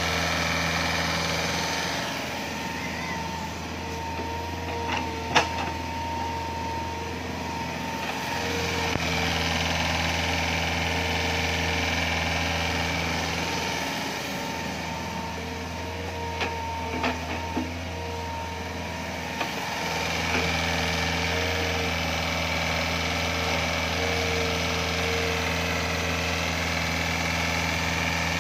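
Hitachi Zaxis 48U mini excavator's Yanmar 4TNV88 four-cylinder diesel running steadily as the machine is test-operated after a control valve repair, its level dipping and recovering a few times. A few sharp knocks come about five seconds in and again around sixteen to seventeen seconds in.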